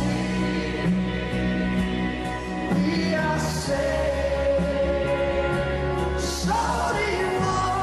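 Music with singing: a song with a sustained vocal line over a steady accompaniment.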